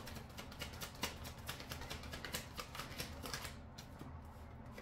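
A deck of cards being shuffled by hand: a quick, close run of light card clicks and flicks that thins out after about three and a half seconds.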